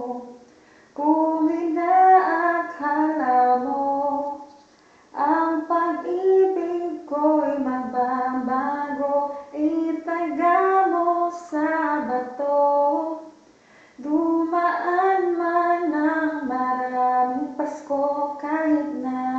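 A female voice singing unaccompanied, in long phrases with short breaks about five and fourteen seconds in.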